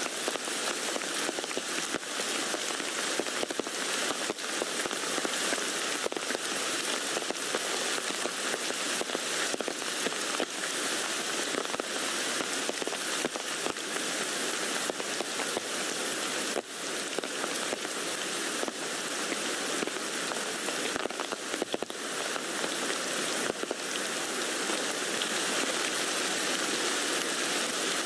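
Steady rain falling on a tent, a dense patter of many separate drops on the fabric.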